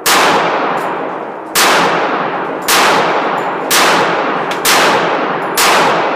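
Six gunshots fired at a steady pace of about one a second, each ringing out with a long echoing tail.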